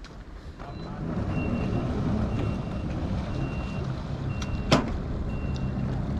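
A vehicle's reversing alarm beeping about once a second over a running engine, with one sharp knock about three-quarters of the way through.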